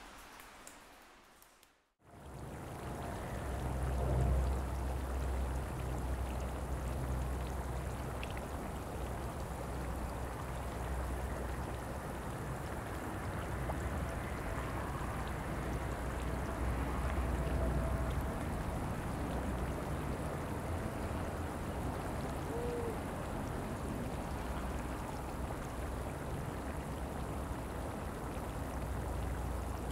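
Steady outdoor ambience of trickling water over a low, unsteady wind rumble on the microphone, starting about two seconds in after a short fade to silence.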